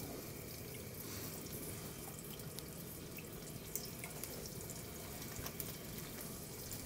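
Faint steady sizzle with a trickle and a few light ticks: olive oil poured from a bottle into a hot nonstick pan on a gas burner, with a flank steak searing in the pan beside it.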